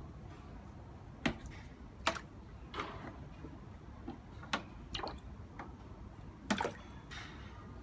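Short water splashes and knocks in a shallow plastic tub of water as a snapping turtle is prodded with a wooden stick: about six sharp ones, spread out over several seconds.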